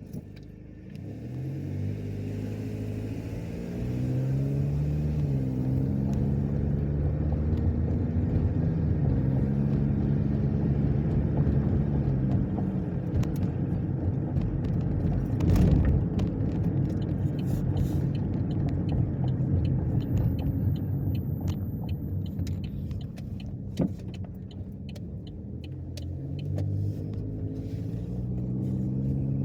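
A 2010 Chevrolet Equinox driving, with its engine note climbing and then dropping back several times as it accelerates and shifts up through the gears, over steady road rumble. There is one short, loud noise about halfway through.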